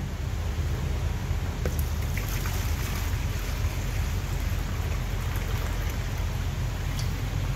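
Water pouring in a steady stream from a plastic drink cooler into a plastic bucket.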